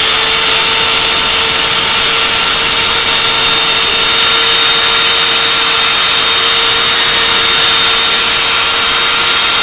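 Fiolent MF3-1100 electric router running at full speed, a loud, steady high whine.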